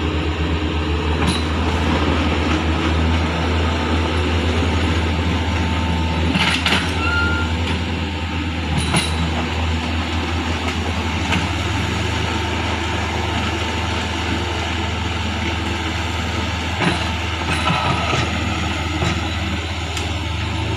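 Diesel engines of a Hitachi mini excavator and a loaded dump truck running steadily under load as the excavator's bucket pushes the truck through mud, with a low drone and a few knocks.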